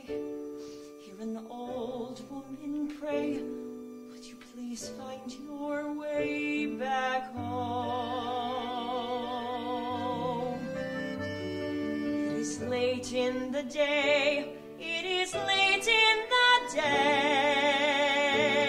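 Slow song from a stage musical: soft accompaniment, then long held notes with a wide vibrato from about six seconds in, growing louder near the end.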